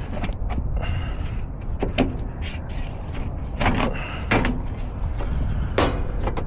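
A filter being handled and pulled from its slot in an HVAC unit: several sharp knocks and scrapes over a steady low rumble.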